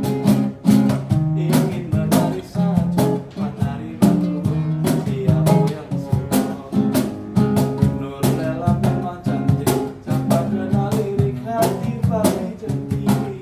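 Acoustic guitar playing chords with a cajon keeping a steady beat, an instrumental passage of an acoustic band performance.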